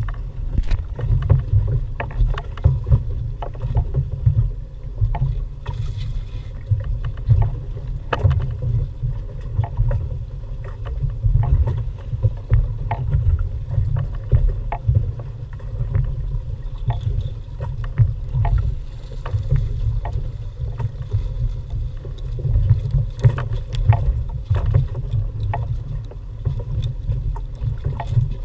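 Wind rumbling on the microphone and water slapping against the hull of a small open boat at sea, with frequent short knocks and splashes throughout.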